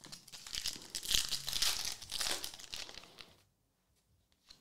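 Crinkling and rustling of plastic card packaging as trading cards are handled. It stops about three and a half seconds in.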